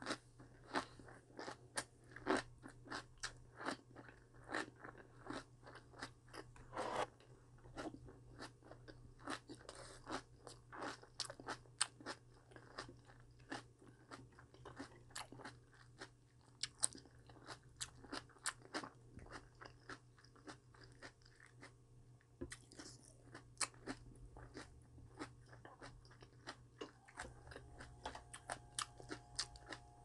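A person chewing crunchy vegetables: a rapid, irregular run of sharp crunches throughout, over a faint steady low hum.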